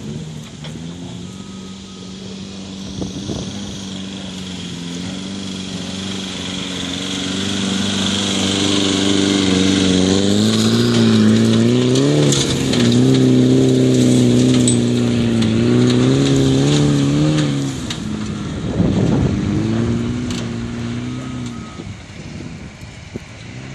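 Mitsubishi L200 pickup's engine working hard under load on a steep dirt climb, the revs rising and wavering up and down as the tyres spin and throw dirt. The engine eases off about three-quarters of the way in, with a brief rush of noise, then fades as the truck moves away.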